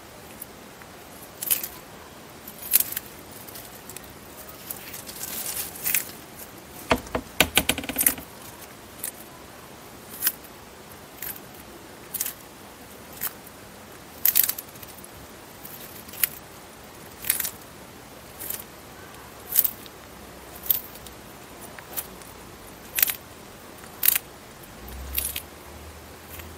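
An Eastern Hermann's tortoise biting and tearing leafy greens: sharp, crisp crunches about once a second, with a quick flurry of snaps about seven seconds in.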